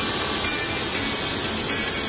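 Gölz HS400 3.3 kW electric hand saw with a 400 mm diamond blade cutting into a concrete wall, running steadily with an even, hissing grind.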